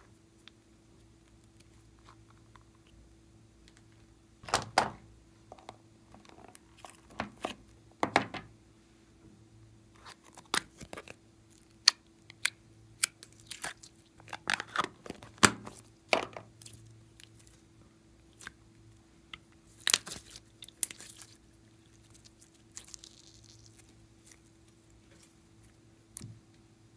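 Small plastic novelty containers being handled and opened, with a lid peeled off a plastic tub: irregular sharp clicks, crackles and crinkles, a few louder snaps among them, over a faint steady hum.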